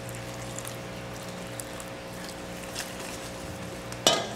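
Liquid ingredients poured from a stainless steel bowl into flour and stirred with a wire whisk in a stainless steel mixing bowl, faint over a steady low hum. There is one sharp clink about four seconds in.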